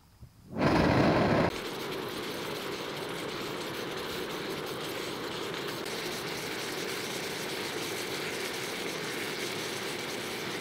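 A small backpacking gas stove on an MSR IsoPro canister being lit: a loud burst as the gas catches, under a second in, then a steady hiss from the burning stove for the rest of the time.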